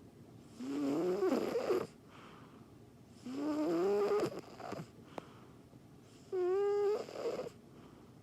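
Snoring: three pitched, whistling snores, each about a second long and a couple of seconds apart, with a faint click between the second and third.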